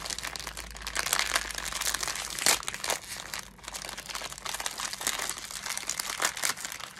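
Packaging crinkling and crackling as it is handled and pulled open, irregular throughout, with a sharper crackle about two and a half seconds in.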